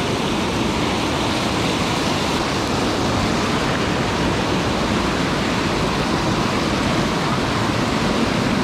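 Loud, steady rush of white water pouring over the rocks of a small weir spillway and gushing from a concrete outfall pipe into the pool.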